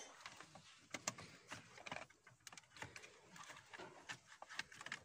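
Faint, irregular light plastic clicks and rattles as a Hyundai Tucson clock spring (the steering-column spiral cable unit) is handled and fitted onto the steering column.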